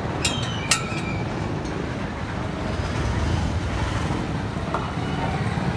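Street traffic: a steady engine rumble of passing vehicles that swells slightly in the middle, with two brief sharp clicks in the first second.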